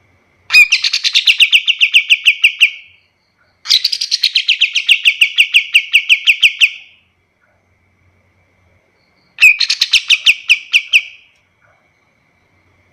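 A kapas tembak (the bulbul kept by Indonesian bird-keepers) singing its rapid, rattling 'shooting' song: three bursts of quick sharp notes, about eight a second, each burst two to three seconds long, the last one shorter.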